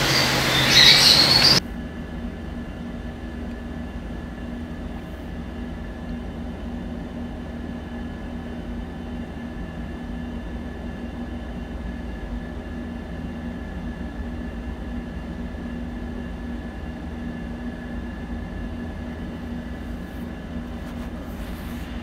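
A loud burst of sound cuts off abruptly about a second and a half in. After it comes a steady low hum with a constant low tone and a faint higher whine.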